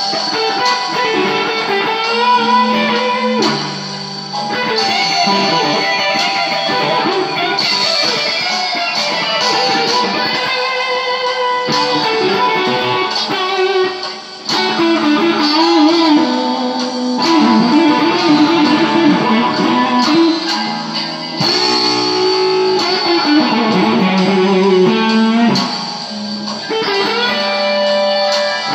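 Stagg single-cutaway electric guitar played through an amplifier: blues lead lines and riffs, with wobbling vibrato on some held notes.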